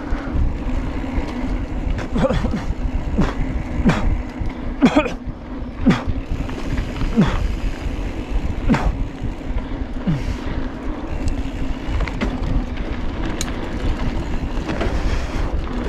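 Mountain bike rolling fast down a dirt singletrack, heard from the bike: wind rushing over the microphone and the tyres running on the dirt with a steady hum. Sharp clacks and rattles from the bike come every second or two as it goes over bumps.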